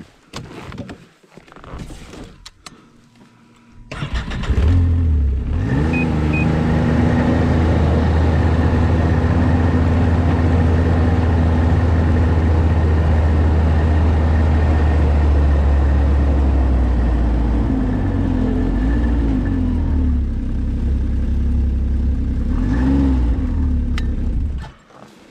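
Snowmobile engine coming in suddenly about four seconds in, revving up and then running steadily as it drives. Near the end the engine speed wavers and briefly rises before it stops.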